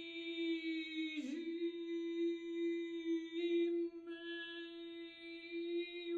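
Unaccompanied female alto voice holding one long steady note, with a short breathy break and downward scoop in pitch about a second in. The tone colour changes a couple of times midway while the pitch stays the same.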